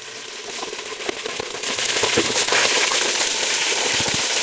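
Raw chicken pieces going into hot cooking oil in a steel pot, the oil sizzling and crackling; it grows louder about a second and a half in as more pieces go in.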